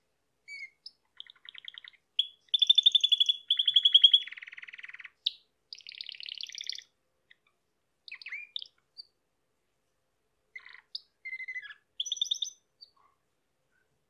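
Domestic canary singing: fast trills of rapidly repeated high notes, loudest in a long trilled run from about two to five seconds in, then shorter scattered phrases and single chips after a pause.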